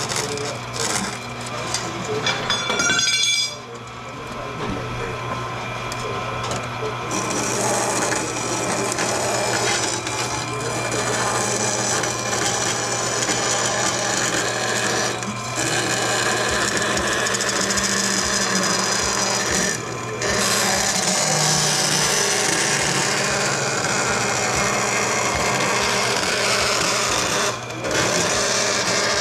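Vertical bandsaw running with a steady motor hum, its blade rasping through aluminum plate. The cut pauses briefly a few times. There is a short high-pitched squeal about three seconds in.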